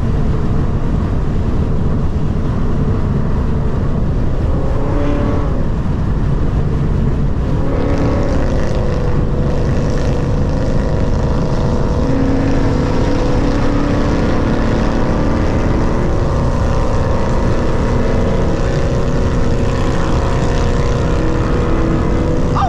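Car engine drone and road noise from a car driving at a steady pace. The level stays constant, with faint engine tones drifting slightly.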